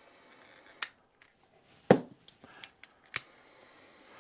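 Sharp clicks and knocks of tools and a torch being handled on a workbench: about half a dozen in all, the loudest a knock about two seconds in, over a faint steady hiss.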